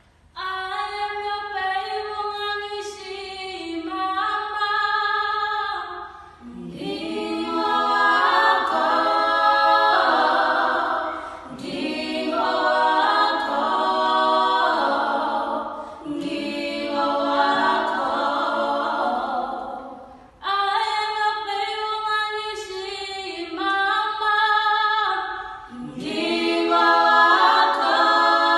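A four-voice group of teenage singers, one male and three female, singing a cappella in harmony. They come in just after the start and sing in phrases a few seconds long with short breaks between them, with a brief pause about twenty seconds in before they come back in.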